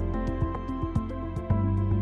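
Instrumental background music with a steady beat: held low bass notes and a melody over light, evenly spaced percussion ticks.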